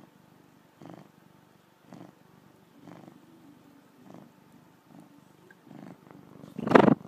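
Domestic cat purring, in pulses about once a second as it breathes in and out, with one much louder burst near the end.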